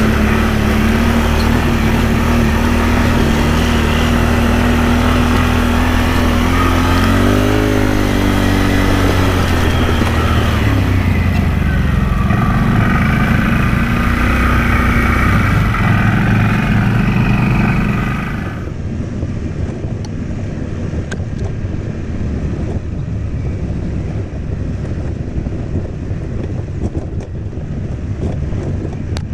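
ATV engine running under way on a trail, with a steady note that rises as it revs up about seven seconds in. At about eighteen seconds the sound drops abruptly to a quieter, duller engine and ride noise.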